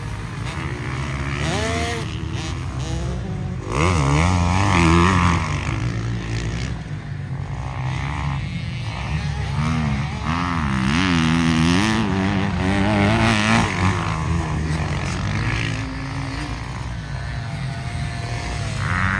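Small 50cc two-stroke KTM dirt bike engines revving hard, their pitch rising and falling over and over as the throttle is worked through jumps and turns. The revving is loudest about four seconds in and again past the middle.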